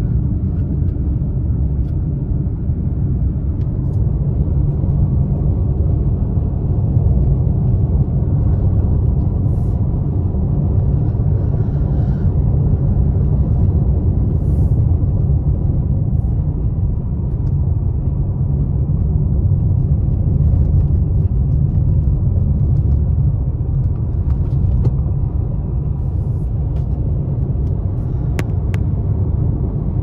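Steady low rumble of a car driving along the highway, heard from inside the cabin: engine and tyre noise on the road.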